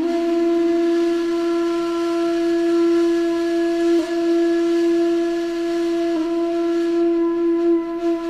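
A flute-like wind instrument holds one long steady note, part of a slow melody.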